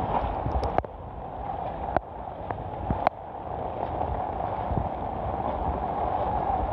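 Heavy rain and floodwater make a steady rushing noise, with wind buffeting the microphone. Three sharp clicks come in the first three seconds.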